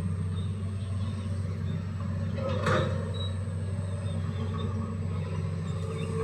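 Hitachi excavator's diesel engine running steadily under load, with one loud clank about two and a half seconds in.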